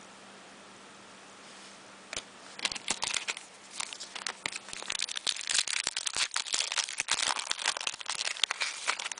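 Foil wrapper of a trading-card pack crinkling and tearing as it is opened by hand; it starts about two seconds in and goes on as dense, irregular crackling.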